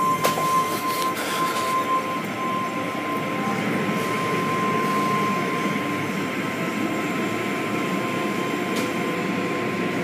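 Automatic car wash working over the car, heard from inside the cabin: spinning cloth brushes and water spray beat against the body and windows in a steady wash of noise, with a few sharp knocks, including some about a second in.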